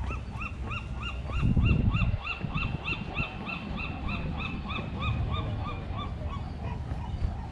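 A gull calling: a long run of repeated yelping notes, each rising and falling, about three a second, fading out about six seconds in. A brief low rumble comes about one and a half seconds in.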